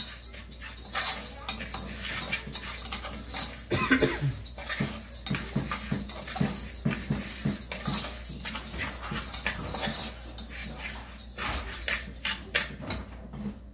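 A metal spoon stirring and scraping rice as it toasts in an aluminium pot, a fast run of scrapes and clinks against the pot.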